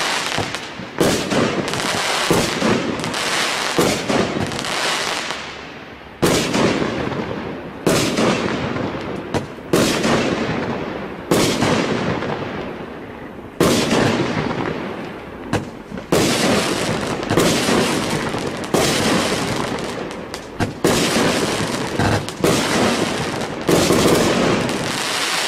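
Aerial fireworks shells bursting overhead in a continuous run, a sharp bang every second or two, each followed by a long fading crackle of glitter effects.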